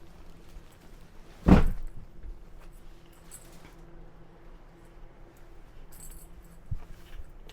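One heavy thump about a second and a half in, a softer knock near the end, and some light jingling in between, over a steady low hum.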